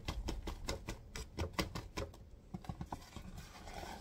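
Paper flour bag crinkling as flour is poured from it into a mixing bowl: a quick run of small crackles that thins out about halfway.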